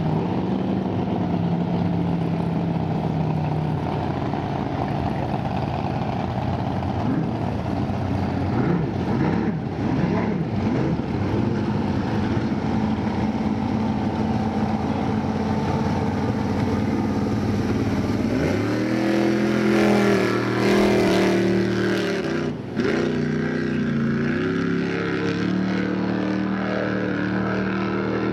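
Freshly rebuilt supercharged Chevrolet racing engine of a V-drive race boat running, its pitch wavering, then climbing sharply about two-thirds of the way through as it revs up, dipping briefly and settling back to a steady run.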